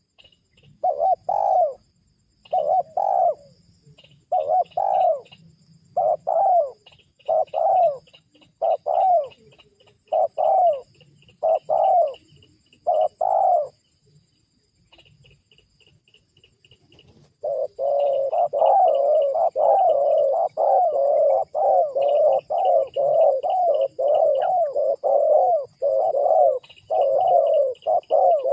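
Spotted doves cooing, a call used to lure wild doves down. Evenly spaced coo phrases give way, after a short pause midway, to a faster, unbroken run of coos, with faint high chirping behind.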